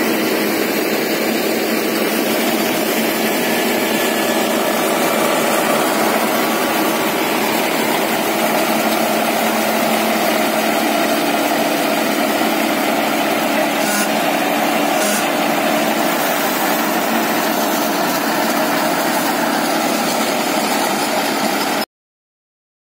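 New Holland 6010 tractor engine running steadily under load while it drives a rotavator through the soil. The sound cuts off suddenly near the end.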